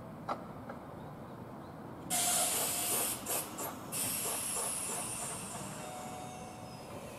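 Sudden loud hiss of compressed air from a standing Kintetsu limited express train, with a few short spurts, then slowly fading: the air brakes being released just before departure.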